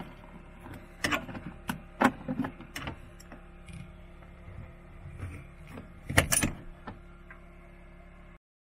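Metal carabiner being handled and clipped onto a door fitting: a series of sharp metallic clinks and clicks, loudest in a quick cluster about six seconds in, over a steady hum. The sound cuts off suddenly near the end.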